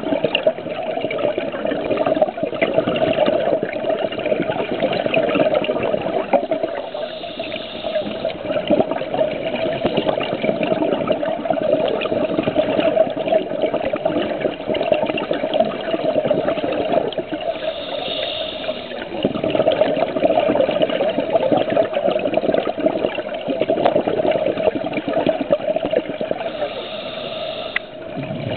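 Underwater sound of a scuba dive: a steady loud rushing of water. Brighter hissing surges of exhaled regulator bubbles come roughly every ten seconds, three times.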